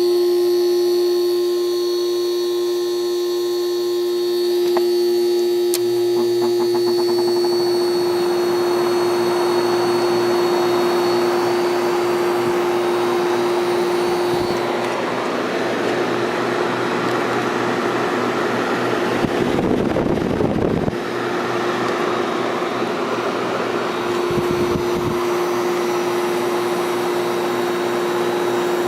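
1973 Whirlpool 6,000 BTU window air conditioner running with its covers off: a steady electrical hum from the rotary compressor at first, then from about six seconds in a rising, steady rush of air from the fan and compressor. The owner notes that the compressor hummed for a while before it started, like a stalled start, and thinks the capacitor may be going out.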